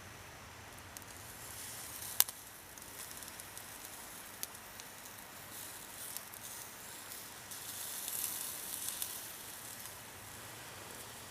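Food sizzling as it cooks, with scattered pops and crackles. There is one sharp crack about two seconds in, and the sizzling swells around eight seconds.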